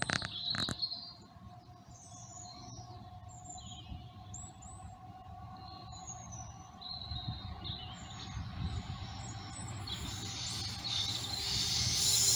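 Birds chirping over the low rumble of an approaching Class 70 diesel locomotive, which grows steadily louder towards the end. Two sharp knocks in the first second.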